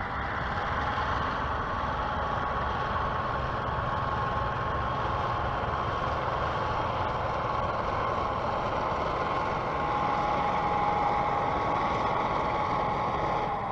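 Diesel locomotives pushing a wedge snowplow through snow drifts: a steady engine rumble with a rush of noise over it and a thin, steady whine on top, getting slightly louder about ten seconds in.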